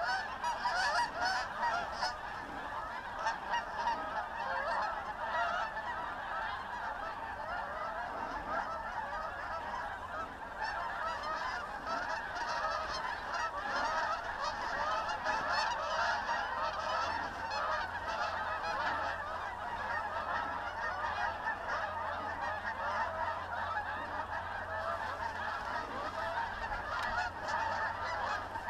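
A large flock of geese calling continuously, many overlapping honks forming a dense, steady chorus.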